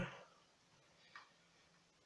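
Near silence: room tone, with one faint click about a second in.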